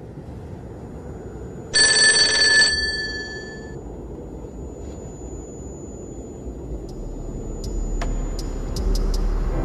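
A telephone bell rings once, about two seconds in, a bright metallic ring of about a second that fades out. Under it a low rumble slowly builds, and a few sharp clicks come near the end.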